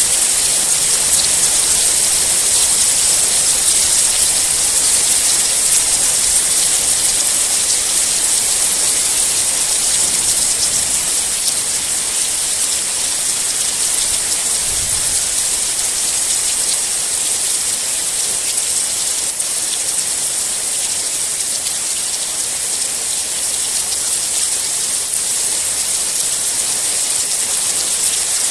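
Heavy rain falling steadily, an even, dense hiss of drops on surfaces.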